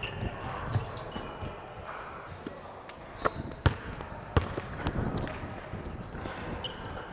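Basketball game: a ball bouncing on the court, with a handful of sharp bounces or thumps in the middle and a few short high squeaks.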